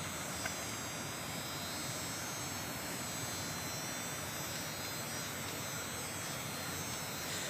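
Steady, even background hiss with no distinct splashes or other events, and a tiny click about half a second in.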